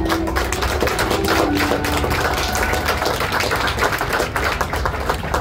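A small audience applauding, with many hand claps close together.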